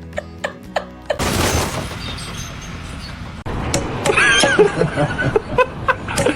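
A sudden loud crash about a second in, its noisy wash fading over about two seconds.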